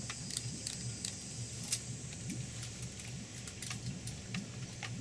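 A steady low hum with many light clicks and taps scattered throughout.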